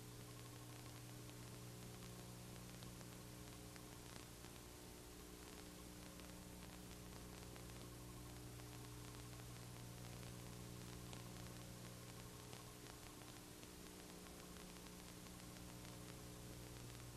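Near silence: a faint steady electrical hum with hiss, the noise floor of a blank recording.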